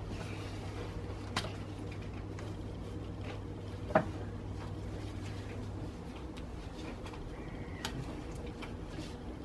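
Gloved hands working a new ribbed drive belt over the engine pulleys: quiet rubbing and handling with a few light knocks, the sharpest about four seconds in. A steady low hum runs underneath and drops away about six seconds in.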